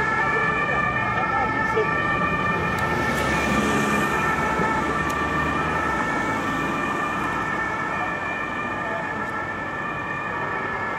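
Emergency vehicle's siren (German Martinshorn) sounding without a break over road traffic, growing slightly fainter towards the end.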